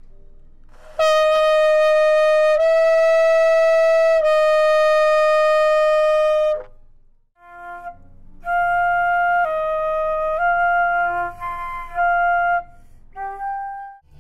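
A wind instrument plays long held notes: three in a row, stepping slightly up and back down. After a pause it plays a shorter phrase of several changing notes and one brief final note.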